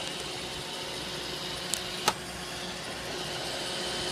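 iRobot Roomba 650 robot vacuum running, a steady hum with a faint whine on top. Two sharp clicks come close together about two seconds in.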